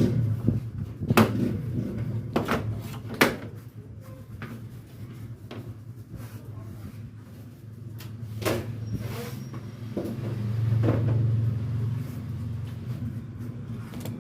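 Plastic back cover of a Samsung 49-inch LED TV being pried off its snap clips by hand: a handful of sharp snaps and clicks, most of them in the first few seconds, over a steady low hum.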